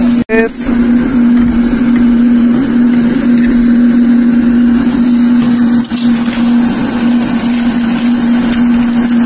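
Electric blower motor running steadily with a constant hum, forcing air into a charcoal furnace, with a few faint knocks later on.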